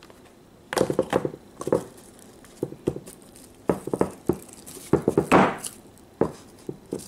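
Snap-on plastic lid being pressed down onto a glass baking dish covered in plastic wrap: irregular clusters of crinkles and sharp clicks, starting about a second in.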